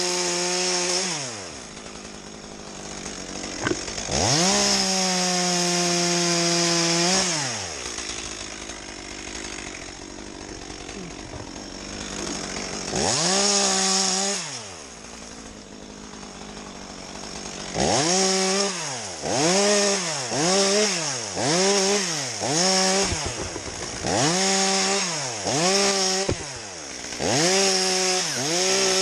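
Chainsaw engine revved to full throttle and held for a few seconds at a time, dropping back to idle in between. From about two-thirds of the way in it is blipped up and down about once a second.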